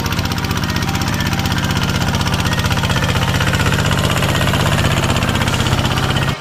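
Single-cylinder horizontal diesel engine of a small ride-on tractor running under load as it pulls a disc plough through dry ground: a loud, steady, rapid chugging that grows slightly louder.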